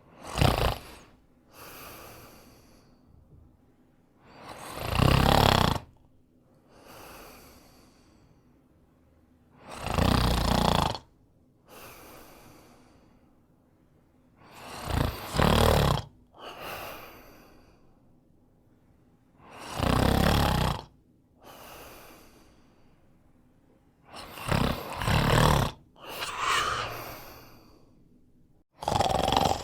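A man snoring in his sleep: a loud snore about every five seconds, each followed by a quieter breath, some snores coming in two parts.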